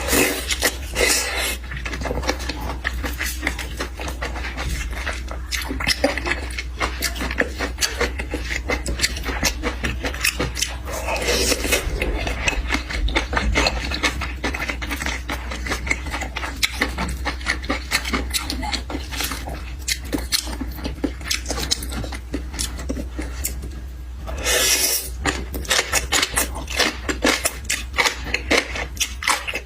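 A person eating skewered food (chuan chuan) close to the microphone: continuous chewing and lip-smacking as rapid clicks, with a steady low hum underneath.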